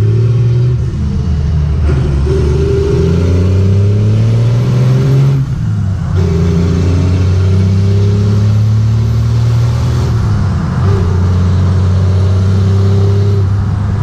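Cummins diesel engine under hard acceleration, heard from inside the cab: its pitch climbs steadily through three pulls, dropping back at the gear changes about five and a half and ten and a half seconds in. A faint high whistle rises with each pull.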